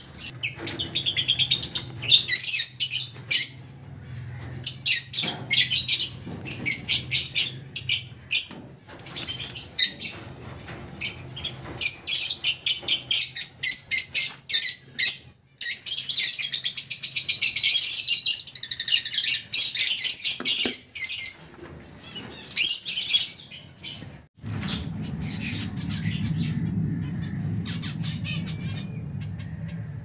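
Birds chirping and chattering in fast, high-pitched runs, with a few gliding calls. About three-quarters of the way through the calls thin out and a steady low hum comes in.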